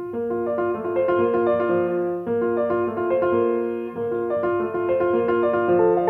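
Steinway concert grand piano playing a steady, even run of notes at a moderate practice tempo, each note matched in length and weight to the next.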